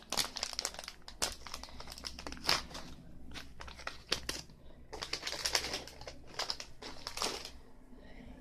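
Plastic candy bar wrapper crinkling and tearing as it is opened by hand, in bursts of crisp crackles with a short lull partway through.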